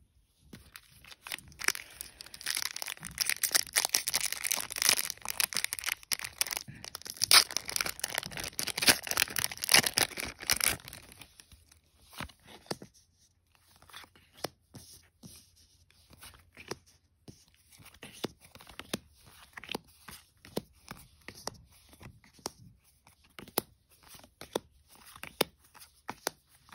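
A Magic: The Gathering booster pack's foil wrapper torn open and crinkled for about ten seconds. After that comes a run of separate light clicks and taps as cards are handled and dealt down one by one into piles on a playmat.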